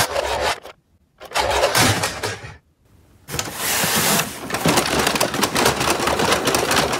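Plastic toy garbage trucks rattling and clattering as they are handled, in three bursts: two short ones, then a longer run of about four seconds.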